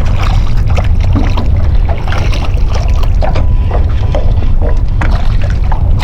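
Wind rumbling on the microphone, with scattered light clicks and knocks of handling gear.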